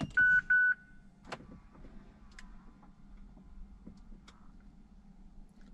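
Two short dashboard chime beeps, then the faint steady hum of the Mazda 6's electric fuel pump priming with the ignition on and the engine off, building fuel pressure. A few light clicks sound over it, the sharpest about a second in.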